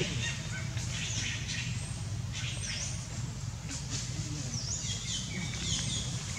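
Small birds chirping: many short, high calls, thickest in the second half, over a steady low hum.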